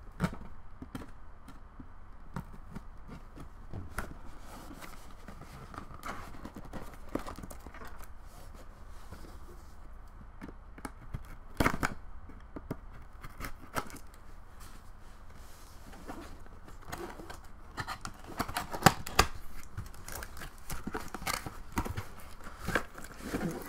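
Scissors cutting at the seal of a cardboard box, then the box being handled and opened: scattered clicks, taps, scrapes and card rustling. The handling is busiest and loudest in the last few seconds as the contents are slid out.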